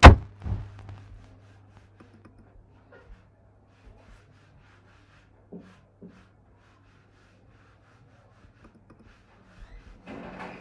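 A sharp thump, the loudest sound, then a lighter one half a second later, followed by faint scattered clicks and two small taps over a low steady hum. A short burst of rustling noise comes near the end.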